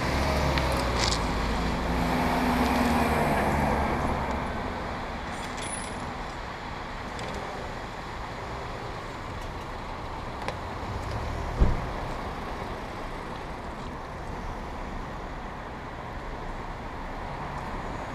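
A car engine runs close by for the first few seconds and fades, leaving steady street traffic noise. A single sharp knock comes a little past halfway through.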